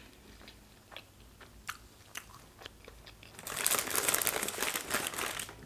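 Chewing a fried breaded steak finger close to the microphone: a few faint mouth clicks, then a burst of loud crunching from about three and a half seconds in that lasts about two seconds.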